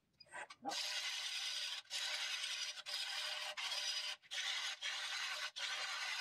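A sharp turning tool taking a roughing cut on a large wooden blank spinning at about 500 rpm on a Nova Neptune Max lathe: a steady shearing hiss as shavings come off, in passes of about a second, each broken by a brief pause. It starts just under a second in, after a few faint clicks.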